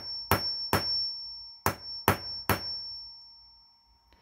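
Claw hammer lightly tapping a steel striking anvil on the Cox piston-reset tool: two sets of three taps, each set about a second long with a pause between them, and a high metallic ring over the strikes. The taps shrink the steel socket around the connecting-rod ball of a Cox .049 piston to take up play in the joint.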